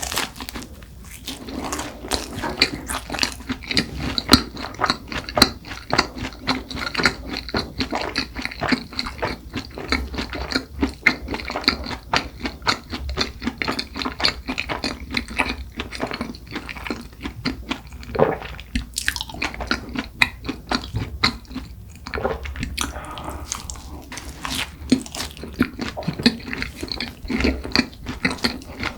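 Close-miked chewing and biting of cronuts, a dense run of small clicking mouth sounds. A few louder bites land about two-thirds of the way through.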